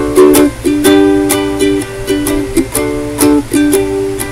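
Solo ukulele strummed in a steady rhythm, about two to three strokes a second, with the chord changing every second or so: an instrumental break with no singing.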